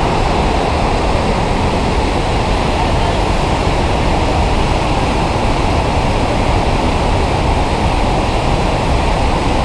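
The Krimmler Ache mountain torrent plunging down a waterfall: a loud, steady roar of rushing white water.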